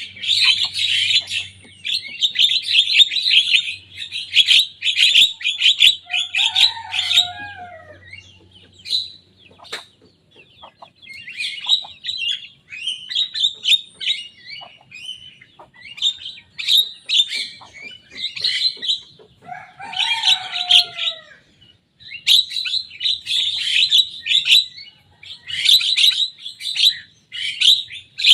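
Young Javan myna singing vigorously: long runs of rapid, harsh chattering notes with short pauses, twice broken by a lower, downward-sliding phrase.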